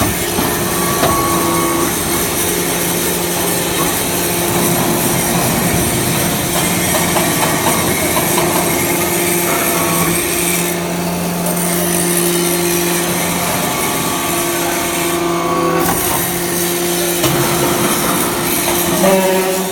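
A hydraulic briquetting press for metal chips running. It gives a loud, steady mechanical hum over a noisy rush, and the hum changes pitch a few times.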